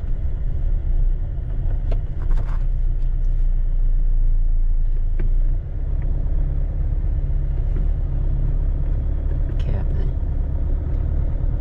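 A car driving slowly along a town street, heard from inside the cabin as a steady low engine and road rumble that eases slightly about halfway through, with a few faint clicks.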